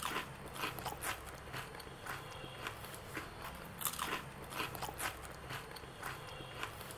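Crispy deep-fried onion rings being bitten and chewed, making an irregular run of crisp crunches.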